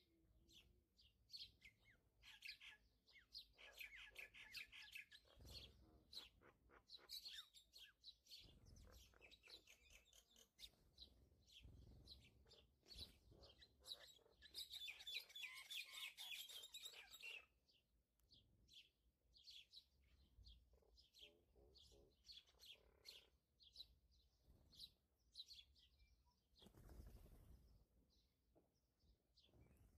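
Faint chirping of small birds: quick repeated chirps with two denser bursts of trilling, along with a few soft low thuds.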